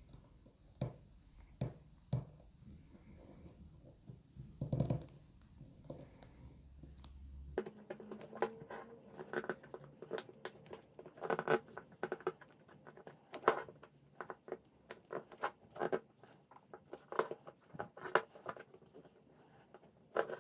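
Thin flat-tip voltage-tester screwdriver prying staples up out of a wooden canvas stretcher frame: irregular small clicks and scrapes of the steel tip against the staples and wood. They come faster and louder about eight seconds in.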